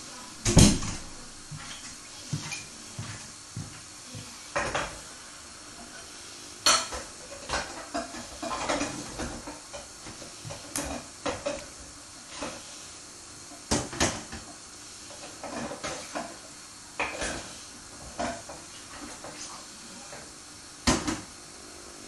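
Irregular clinks and knocks of hard objects, sometimes several close together and sometimes a few seconds apart. The sharpest come about half a second in, near the middle and near the end.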